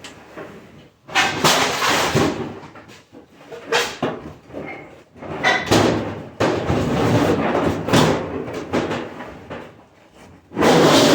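Heavy stainless steel dishwasher parts being shoved and worked loose, with repeated scraping and banging. It comes in uneven bursts and gets loudest near the end.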